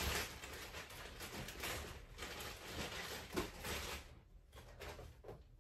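Faint rustling, with a few light knocks, from skeins of yarn being handled and set onto shelves. The rustling fades about four seconds in.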